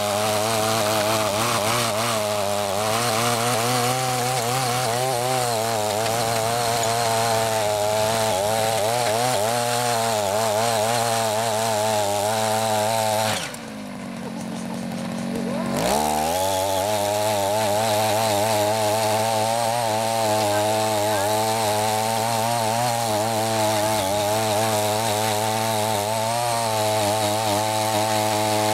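CY50 folding mini tiller's small petrol engine running hard as its four rotary tines churn through soil and weeds. About halfway through the engine drops back to idle for a couple of seconds, then revs back up.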